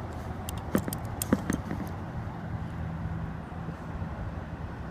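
A few light, sharp clicks in the first second and a half, over a steady low hum.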